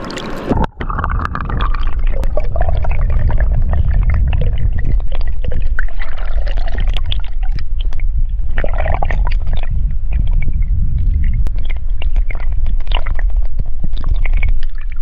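Water gurgling and bubbling around a camera held underwater: a loud muffled low rumble with irregular bubbly pops and clicks, starting about a second in.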